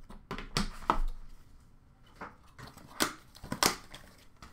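A cardboard hockey-card box being opened and its cards handled: a string of short rustles, scrapes and knocks of cardboard and card stacks. The loudest come about three seconds in.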